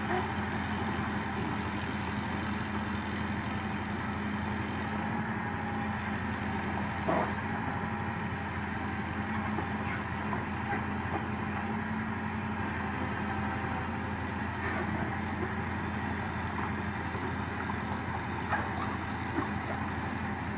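Komatsu PC200 excavator's diesel engine running steadily, with a few short knocks from the machine's work.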